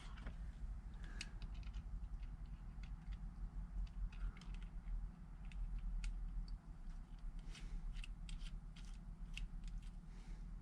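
Faint scattered clicks and light ticks of small TIG torch parts being handled and threaded together, over a low steady hum.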